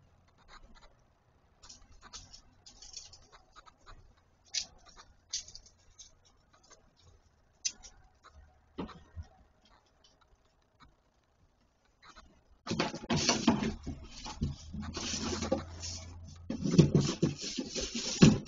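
Dog on a wooden porch: scattered light clicks and taps, then from about two-thirds of the way in, loud, continuous scraping and rustling as it grabs and drags a package across the boards.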